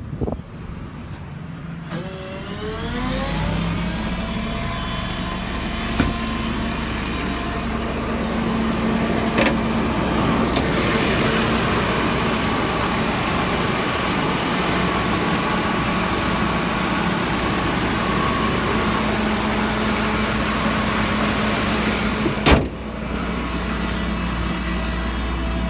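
Truck engine running with the PTO-driven hydraulic air compressor engaged. A rising whine as it spins up about two seconds in, then steady running. A rushing noise starts about ten seconds in and stops with a sharp clunk near the end.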